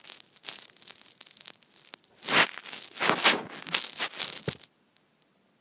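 Contents of an opened ring-pull tin being shaken and scraped out onto a plate: a run of scraping, crinkling strokes and clicks, loudest from about two seconds in, cutting off suddenly about four and a half seconds in.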